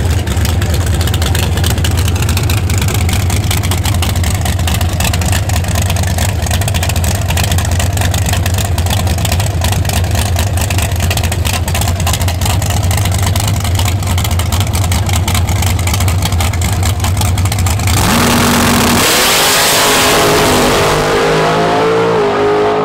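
A 1969 Camaro radial drag car's engine idling loud and lumpy at the starting line. About eighteen seconds in it launches at full throttle, and its pitch climbs and steps through the gear changes as the car runs away down the strip.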